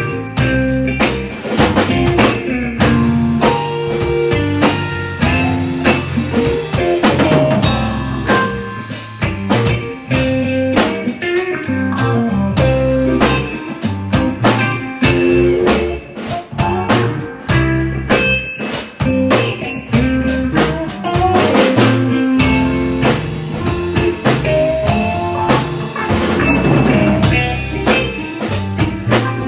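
Blues-style band music: a drum kit keeps a steady beat with rimshots under guitar and a low bass line.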